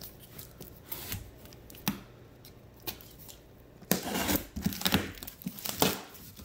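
Packing tape on a cardboard shipping box being cut and torn open: a few light taps and scrapes at first, then a run of loud ripping and cardboard scraping from about four seconds in as the flaps come free.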